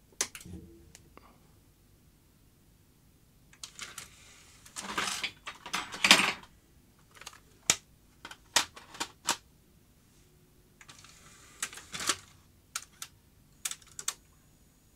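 Plastic clicks and clattering as a Digital Compact Cassette is fitted into the Philips DCC900 deck's opened loading tray. There are a few short bursts of scraping handling noise, about four and six seconds in and again near twelve seconds, and a string of sharp single clicks in between.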